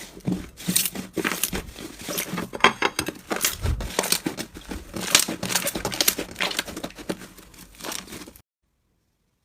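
Slime being squeezed and worked by hand, giving a dense run of crinkly, crackling pops and clicks. It cuts off suddenly near the end.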